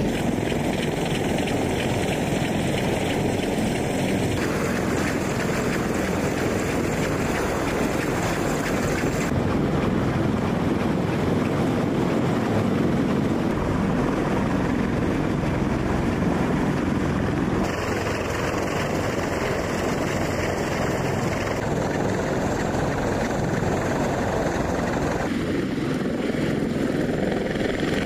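CH-53 heavy-lift helicopter running on the ground with its rotors turning, a loud, steady rush and thrum of rotor and turbine noise. The sound shifts abruptly several times.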